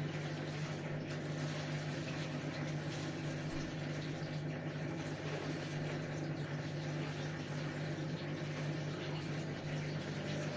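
Hotpoint Ariston washing machine running on its quick wash 60 programme: a steady low hum from its motor or pump under a wash of water noise.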